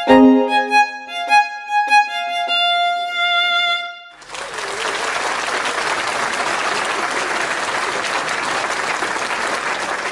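Short outro music tune of bright pitched notes, stopping about four seconds in, followed by a steady stretch of applause from a stock sound effect.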